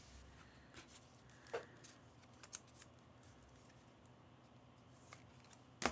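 Quiet room with a few faint, scattered clicks and light handling noises, and one sharper click near the end.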